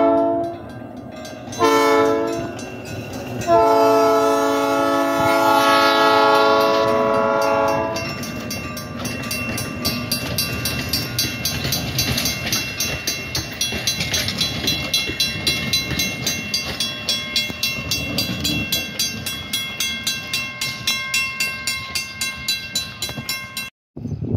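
Diesel switcher locomotive's air horn blowing a short blast and then a long one of about four seconds, the close of a grade-crossing signal. Then a crossing-signal bell rings steadily, about two to three strokes a second, while the coaches roll over the crossing, until it cuts off sharply near the end.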